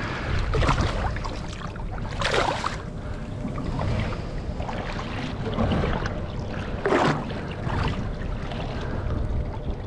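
Seawater sloshing and splashing against the side of a boat, with two louder splashes about two and a half and seven seconds in.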